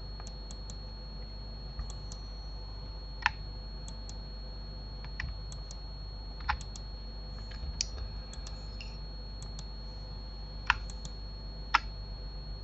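Scattered computer keyboard and mouse clicks, a few small ticks and four sharper clicks standing out, over a steady low electrical hum.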